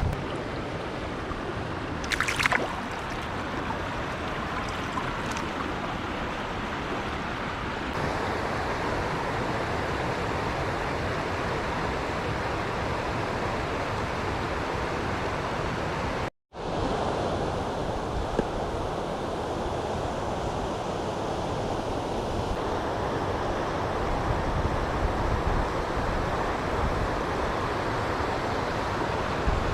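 Steady rushing of river water. A short high-pitched sound comes about two seconds in, and the sound cuts out for a moment about halfway.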